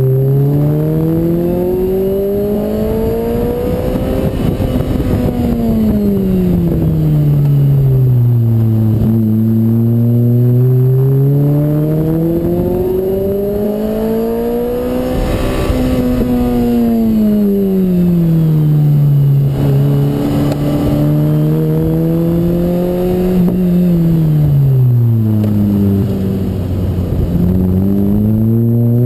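Lotus Exige engine heard from the open cockpit on a track lap, revving up and easing off through the corners: the pitch climbs for about four seconds, falls away, climbs again about ten seconds in, holds, then drops and starts rising again near the end. Wind noise runs underneath.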